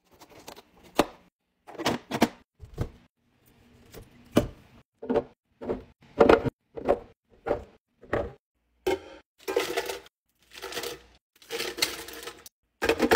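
Fridge restocking: a run of sharp clacks and knocks, about one or two a second, as containers and packaged items are set down and arranged. In the last few seconds these give way to longer rustling and scraping sounds.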